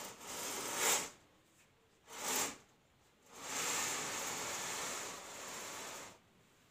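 A mosquito net being slid along its ceiling rail, with the runners hissing along the track and the net fabric rustling, in three pulls: one about a second long at the start, a short one around two seconds in, and a longer one of about three seconds.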